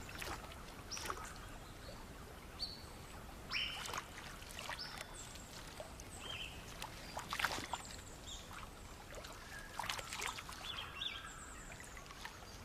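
River-edge outdoor ambience: scattered short, high chirping calls over a steady hiss of running water, with a few brief splashes or sloshes of water.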